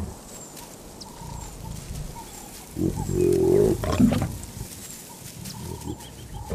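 A lion snarls once, low and loud, for about a second and a half starting about three seconds in. It is the hostile reaction at the end of mating, provoked by the pain of the male's barbed penis.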